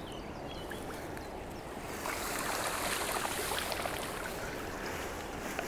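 Grass rustling and water splashing as weeds are pulled by hand from the shallows, getting louder about two seconds in. A few birds chirp before that.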